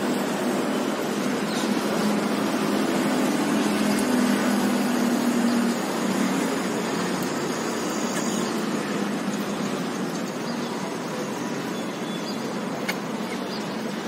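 Steady hiss of city road traffic. One vehicle passes, swelling a little louder about four to six seconds in.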